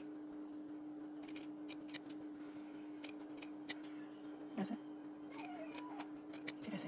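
Scissors snipping through a folded stiff sheet: a run of short, sharp, uneven snips over a steady low hum.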